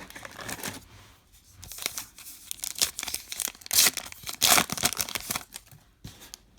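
A baseball card pack wrapper being torn open and crinkled in the hands, in a few ripping bursts with the loudest tears about four seconds in.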